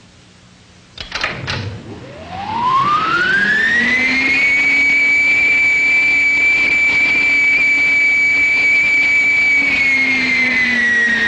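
Wind-tunnel blower starting up: two or three clunks about a second in, then a whine that rises in pitch over about three seconds as the airstream is brought up to the test speed of 210 miles per hour. It then holds a steady high whine and begins to fall in pitch near the end.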